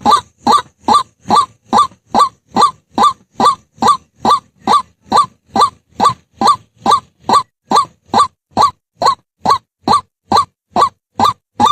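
White-breasted waterhen calling, one short note repeated steadily at about three a second.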